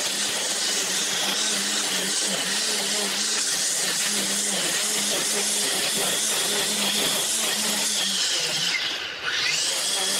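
String trimmer running at speed, cutting grass with a steady high whine over the hiss of the cutting line. Near the end the whine drops sharply in pitch for a moment and climbs straight back up.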